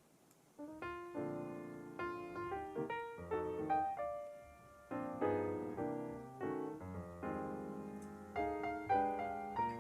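Background piano music: a gentle melody of struck notes, each fading after it is played, coming in about half a second in.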